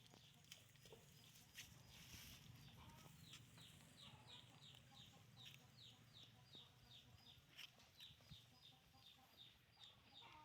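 Faint, rapid peeping of chicks: short, high, falling calls about three a second, kept up without a break.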